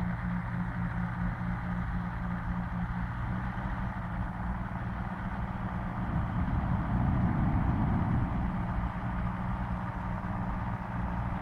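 Engines and propellers of hot-air airships droning steadily, with a louder, rougher stretch about six to eight seconds in.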